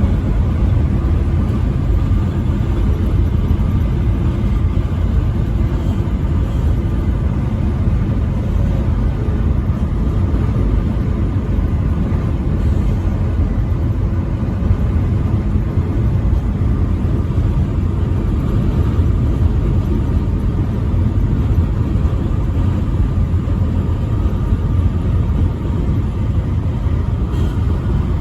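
Semi truck running at highway speed: a steady low drone of engine and road noise, with no horn.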